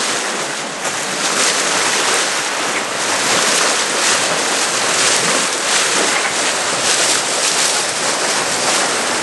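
Steady rushing hiss of water along the hull of a sailboat under full sail, with wind blowing across the microphone.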